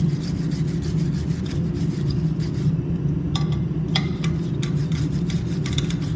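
A wire brush scrubbing back and forth over a hot mild steel leaf hook, in quick repeated rasping strokes. A steady low hum runs underneath.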